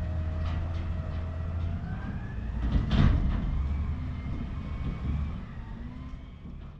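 Garbage truck engine running with a strong steady low hum and a whine that slowly rises and falls in pitch, with a loud clank about three seconds in. The sound fades away near the end.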